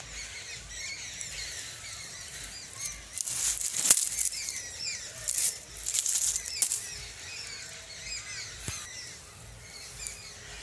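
Many small birds chirping and calling in a steady chorus, broken a few times near the middle by short rustling bursts and a sharp click.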